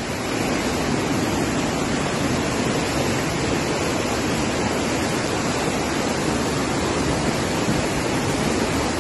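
Flash-flood torrent of muddy water rushing fast through a channel: a steady, unbroken rush of water.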